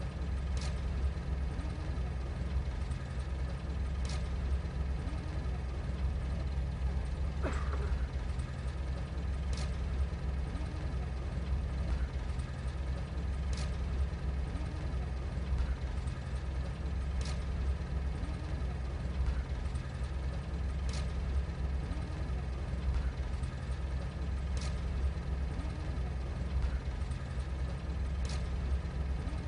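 A steady low mechanical rumble, like an engine running, with a faint tick about every three and a half to four seconds.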